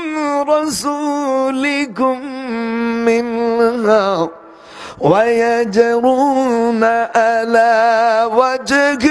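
A man chanting in a drawn-out, wavering melody, holding each note, with a short break for breath about four seconds in.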